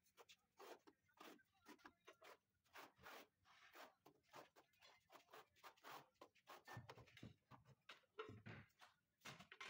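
Faint, irregular scraping and light tapping, several strokes a second, as glass mosaic tile sheets are pressed and worked into tile adhesive by hand and with a small tool.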